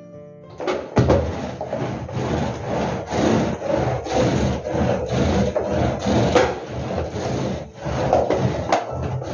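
Long-handled carpet brush scraping back and forth over a pile carpet in repeated quick strokes, starting about half a second in. It is sweeping up loose hair.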